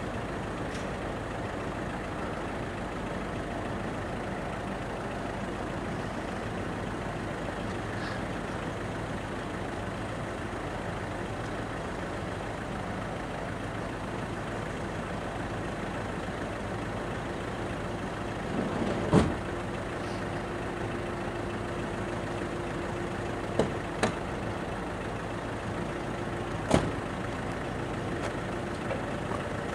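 Truck engine running steadily to drive the hydraulics of a truck-mounted folding-boom aerial work platform as the boom moves. A few sharp knocks or clicks sound, the loudest about two-thirds of the way through, and a steady tone joins the hum from then on.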